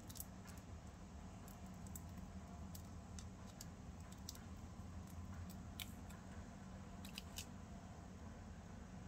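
Faint small crinkles and ticks of parchment paper being peeled from a miniature souffle pancake and handled by the fingers. About ten of them are scattered irregularly, over a low steady hum.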